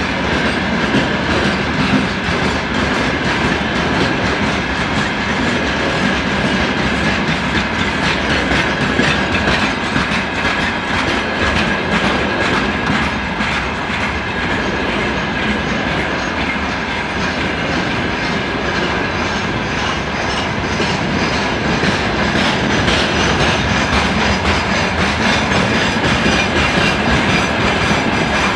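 Freight train wagons rolling past close by, their wheels clacking continuously over rail joints, with a steady high-pitched squeal running underneath.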